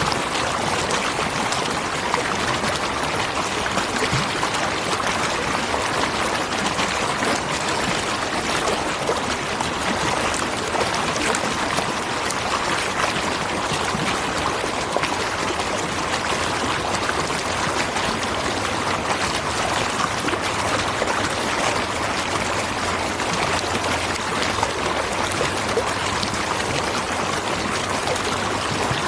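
Waterfall: water falling and rushing in a steady, unbroken wash.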